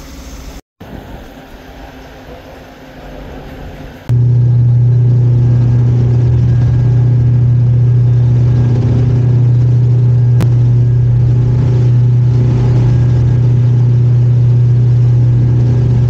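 A loud, steady low motor drone that starts abruptly about four seconds in, after a few seconds of quieter background noise.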